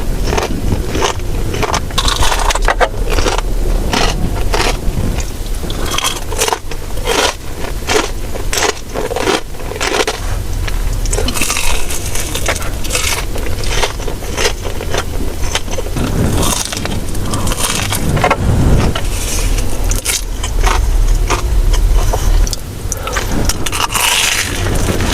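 Close-miked biting and chewing of a crunchy fried Korean corn dog: a dense run of crisp crunches and crackles.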